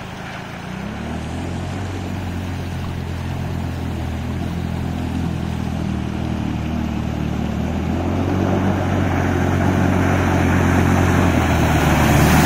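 Can-Am Outlander 650 ATV's V-twin engine running as it drives through a shallow river, getting steadily louder as it approaches. The hiss of water spray thrown up by the wheels grows toward the end.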